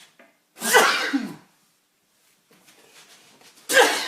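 A man sneezing twice, two loud, explosive sneezes about three seconds apart, with a faint drawn-in breath before the second.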